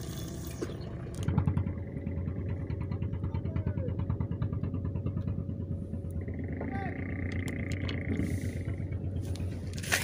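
An engine running steadily at a low pitch, with a rapid regular ticking over the first half. A steady high tone sounds for a couple of seconds in the second half, and there is a sharp click at the end.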